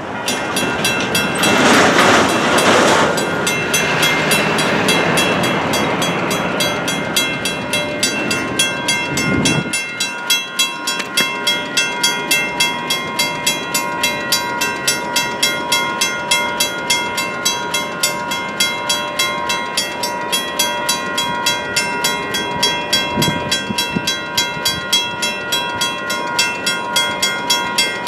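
Railroad crossing warning bells ringing as the crossing signals activate: a WCH mechanical bell and a WCH electronic bell, sounding as a fast, even run of clangs. A road vehicle passes close by in the first few seconds.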